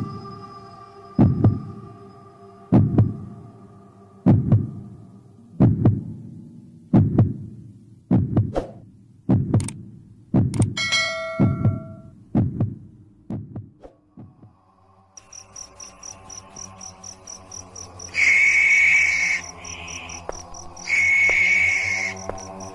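Heartbeat sound effect: deep single thumps about every second and a half, coming a little faster and fading out about two-thirds of the way in. A bright chime rings about halfway through. In the last third there is a steady droning tone under a high, fast-pulsing chirp, with two loud stretches of a higher tone near the end.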